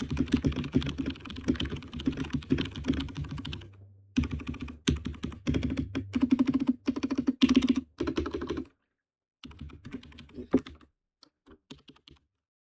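Typing on a KL61 60% mechanical keyboard with red linear switches in a plastic case: rapid runs of keystrokes that pause briefly about four seconds in and again near nine seconds, then a few scattered key presses near the end.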